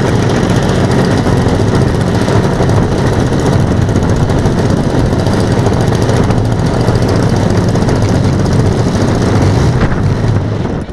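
Engines of a radio-controlled B-17G scale model running steadily, a loud buzzing drone, cutting away sharply near the end.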